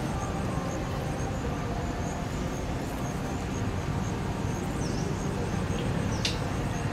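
Steady low outdoor background rumble at an even level, with a few faint, short high chirps in the second half.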